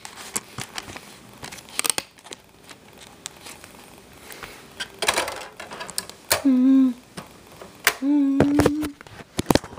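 Handling noise from opening a DVD and working the player: scattered sharp plastic clicks and crinkling, with a short rustle about five seconds in. Two brief hummed voice sounds come in the second half.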